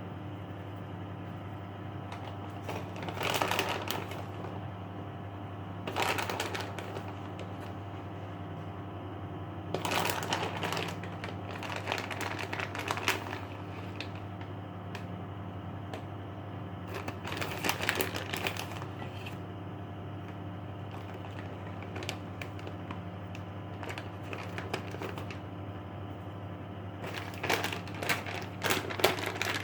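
Bursts of light clicking and rattling, five or so spread through, over a steady low hum.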